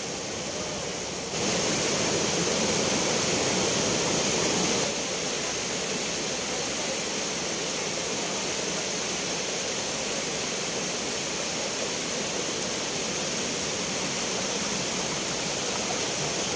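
Spring water rushing steadily, a dense, even roar of flowing water. It is louder from about one second in until about five seconds in, then settles a little lower.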